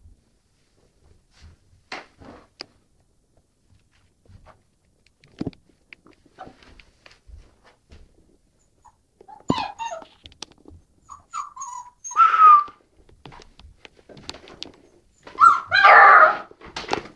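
Puppy whining and giving short high barks or yelps, in a few bursts from about halfway on, the longest and loudest near the end; faint taps and scuffs before that.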